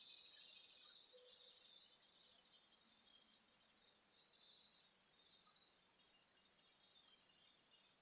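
Faint, steady high-pitched insect chorus, easing slightly near the end.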